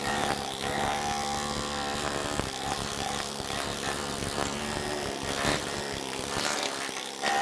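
Needle scaler running steadily, its bundle of steel rods hammering old underseal off a car's steel floor pan and exposing bare metal.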